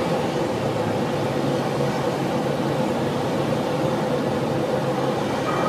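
Single-engine light plane's propeller engine running steadily, heard from inside the cockpit as a constant drone over rushing air noise.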